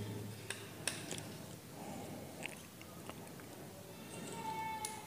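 Faint scattered clicks and light metal scrapes from the folding blades of a forged-iron hammer-axe multi-tool being handled, with a brief faint metallic ring near the end.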